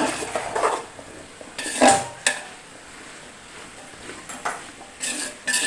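A spoon scraping and clinking against the side of an aluminium pot while diced potatoes in spice powder are stirred. The strokes are irregular, the loudest a little under two seconds in, with a few more near the end.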